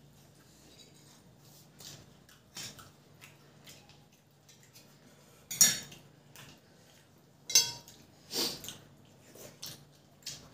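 Scattered clinks and scrapes of stainless-steel plates and bowls as rice is eaten and mixed by hand. The two loudest sharp clinks come about halfway through and a couple of seconds later.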